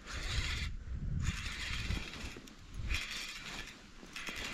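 Small spinning reel being cranked to reel in a hooked fish, its gears whirring in three spells with short pauses between turns.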